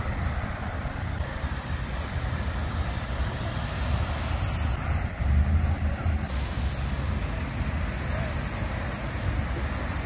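Water fountain splashing steadily, with wind rumbling on the microphone and a louder low rumble about five seconds in.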